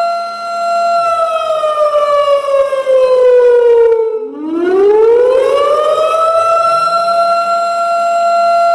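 Warning siren wailing: a steady high tone slides down over about three seconds, breaks off briefly about four seconds in, then climbs back up and holds the high tone again.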